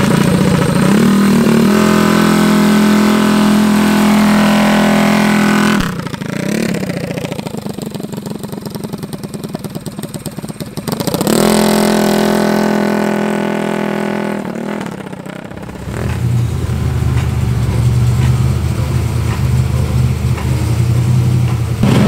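Minibike engine revving and running hard, rising and holding at high speed, dropping away and coming back as the bike pulls off. For the last several seconds a deeper, lower-pitched engine runs steadily instead.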